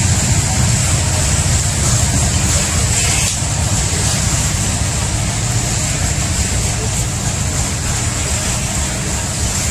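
Loaded coal hopper cars rolling past on the rails: a steady low rumble of steel wheels on track, with a constant high hiss above it.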